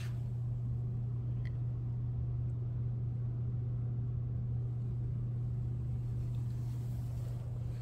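A steady low machine hum, holding one pitch throughout.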